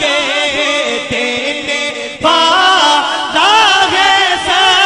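A man's voice chanting an Urdu devotional verse, a naat couplet, in long ornamented melodic lines without instruments. There is a short break about two seconds in, then a louder new phrase.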